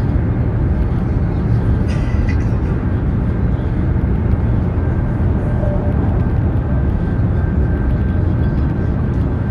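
Steady low rumble of a high-speed train running at speed, heard from inside the carriage, with a faint steady whine above it.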